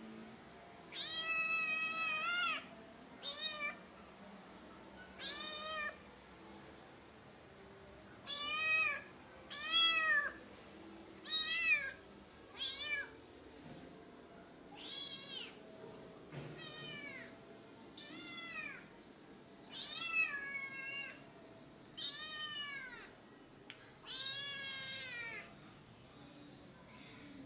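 A kitten meowing over and over, about thirteen high-pitched calls spaced a second or two apart, some short and some drawn out. These are the calls of a kitten that cannot find its mother.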